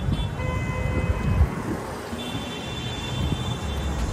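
City street traffic noise, steady and low, with a few thin steady high tones over it: one set in the first second and a half and a higher set in the second half.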